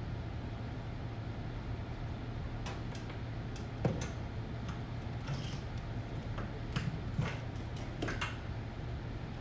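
Scattered clicks and knocks of cables and equipment being handled on a desk, the sharpest about four seconds in, over a steady low hum.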